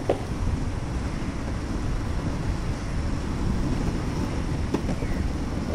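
Wind buffeting the microphone of a rider moving along a path on an electric board, a steady low rumble, with two short knocks, one just after the start and one near the end.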